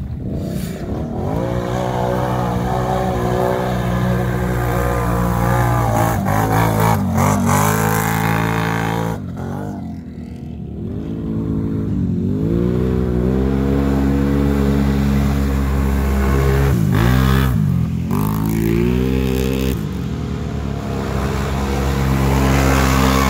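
ATV engine revving hard under load through deep mud, its pitch dropping and climbing again several times as the rider backs off and opens the throttle.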